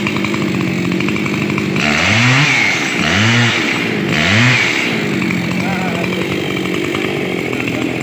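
Two-stroke chainsaw engine running at idle, its throttle blipped three times about a second apart so the pitch sweeps up and back down each time before settling back to idle.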